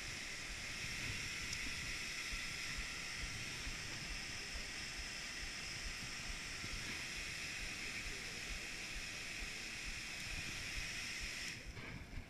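Steady hiss with no clear rhythm or pitch that drops away abruptly near the end.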